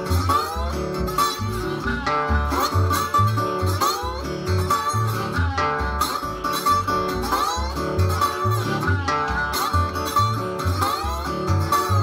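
Acoustic Delta blues trio playing: a resonator guitar played with a slide in open D tuning, with notes gliding in pitch, a cupped harmonica playing held and bent notes, and a washtub bass plucking low notes on the beat.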